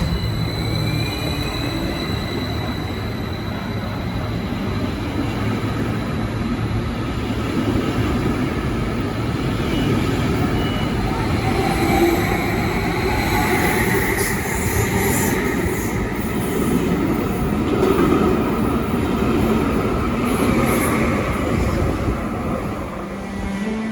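Train running on the tracks: a steady rumble, with faint wheel squeal in the middle stretch.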